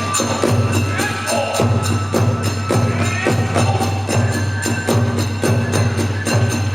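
Kagura ensemble music: a drum beating fast and evenly, about three strokes a second, with hand cymbals clashing and a held flute line.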